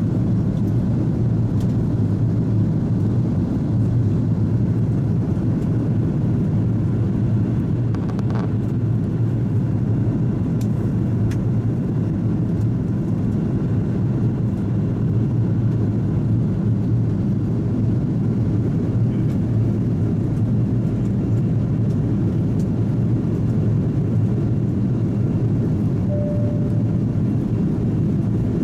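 Steady low rumble of an Airbus A330-300's engines and airflow heard inside the passenger cabin in flight. A faint click comes about eight seconds in, and a brief faint tone sounds near the end.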